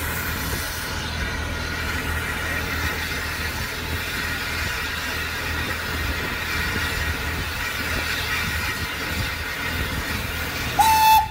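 Steady hiss and rumble of a standing steam locomotive, GNR(I) V class 4-4-0 compound No.85 'Merlin', simmering in steam with smoke rising from the chimney. Near the end comes a short, loud single-pitched tone that rises briefly at its start.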